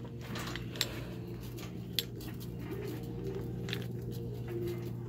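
Wire shopping cart rattling as it is pushed along a store aisle, with a few sharp clicks, over faint in-store background music.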